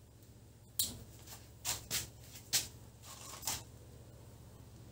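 Scissors snipping through the nylon monofilament mesh of a trammel net: about five short, sharp cuts over roughly three seconds.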